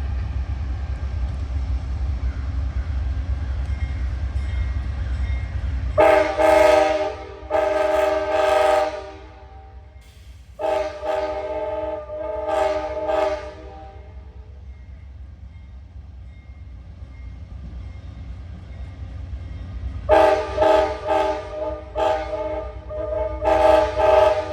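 Nathan K5LA five-chime airhorn on a GE P42DC diesel locomotive, sounded as two long blasts, a short pause, two more long blasts, then a quick run of short blasts near the end. Between the horn blasts the locomotive's diesel engine rumbles low and steady.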